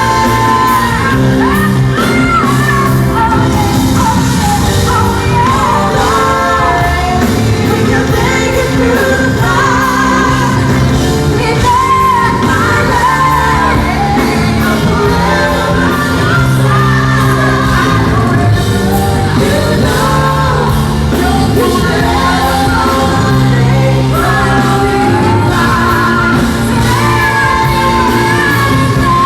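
Live pop-rock concert performance: a woman singing a song with a full band, heard in a large hall.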